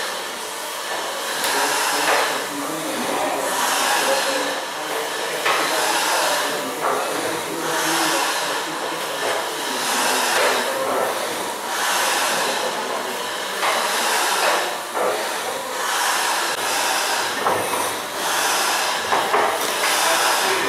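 Worth-McKenzie triple expansion steam engine running slowly, a hiss of steam swelling in regular pulses about every one to two seconds, with an occasional sharp knock.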